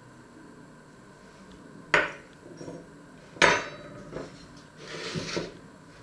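Two sharp clinks of a metal serving spoon against a china plate, the second the louder, followed by softer knocks and a short scraping sound of utensils on the plate and wooden board.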